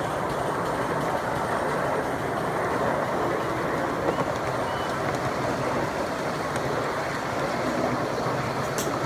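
Ride-on 1-inch-scale miniature railway train rolling along its track: a steady rumble of small wheels on rail, with one sharp click near the end.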